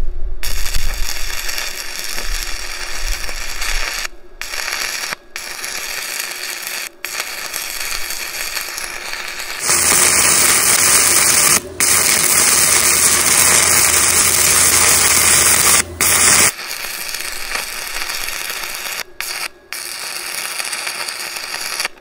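Arc crackling as a 1/8-inch 6010 stick electrode burns at 100 amps DCEP on a Tooliom TL-200T welder. Several times the arc cuts out for a split second, which is typical of 6010 on lower-end machines. There is a louder stretch for several seconds in the middle.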